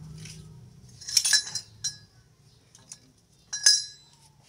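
Metal hand tools clinking against metal: a quick cluster of sharp, ringing clinks about a second in, a lighter click shortly after, and another loud ringing clink near the end.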